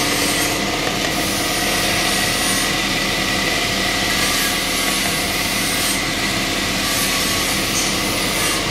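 Horizontal metal-cutting bandsaw running, its blade cutting through aluminium plate: a steady grinding noise with a constant high tone.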